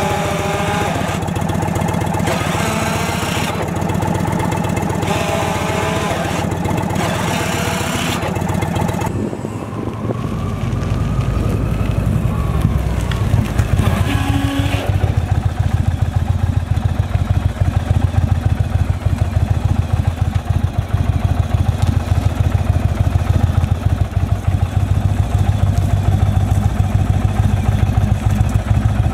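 Indian Roadmaster's V-twin engine running with a steady, low pulsing throb, taking over about a third of the way in and holding through slow riding and idle.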